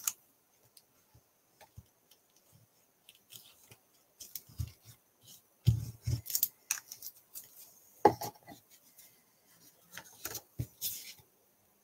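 Paper and cardstock rustling and sliding on a desk while a plastic liquid-glue bottle is used and handled, in scattered light taps and rustles, with a couple of louder knocks about six and eight seconds in.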